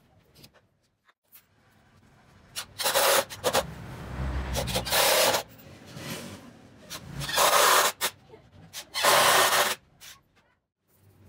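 Rough rubbing, rasping noise of an abrasive worked by hand against wood, in three runs: one of about two and a half seconds, then two shorter ones under a second each.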